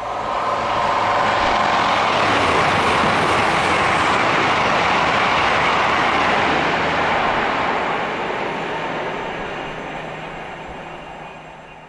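Electric train passing at speed: a loud rushing noise that comes in abruptly, holds for about seven seconds, then fades away.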